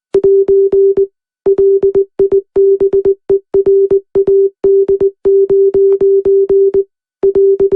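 Morse code sent as a single steady mid-pitched beep, keyed on and off in short dots and longer dashes, carrying a coded message, with a brief pause about seven seconds in.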